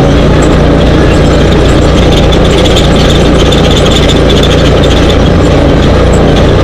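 Dune buggy engine running steadily under way, loud and close, heard from a camera on the buggy's roll cage, with noisy road sound and light rattling over it.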